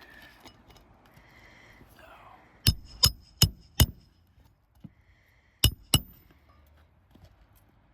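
Hammer blows driving roofing nails through an asphalt shingle: four quick ringing strikes, then two more a couple of seconds later.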